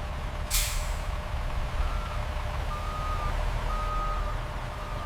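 Truck engine rumbling low, with a short hiss of air brakes about half a second in, then a reversing alarm beeping about once a second.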